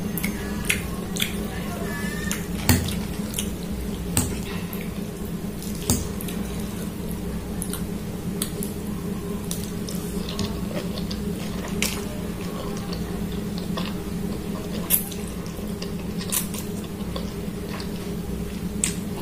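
A person eating ramen noodles with a fork from a glass bowl: slurping and chewing with scattered sharp clinks of the fork, over a steady low hum.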